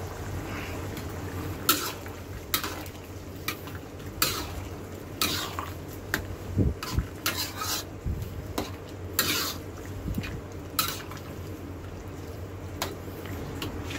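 Metal ladle scraping and knocking against a black wok while stirring a thick pork-and-tomato stew: about ten irregular strokes over a steady low hum.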